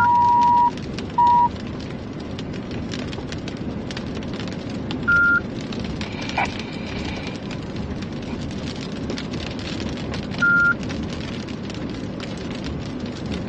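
Rain and tyre noise heard from inside a vehicle driving on a wet road. Loud electronic beeps cut through it: a two-tone beep that stops just under a second in, a short beep just after, then single higher beeps about every five seconds.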